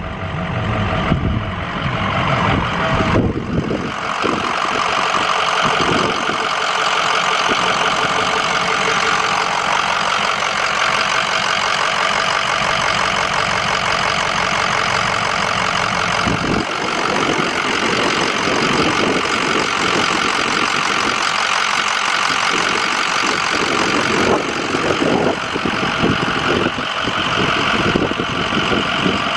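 6.0L V8 turbo-diesel engine of a 2005 Ford F-350 Super Duty idling steadily, with a few shifts in its sound along the way.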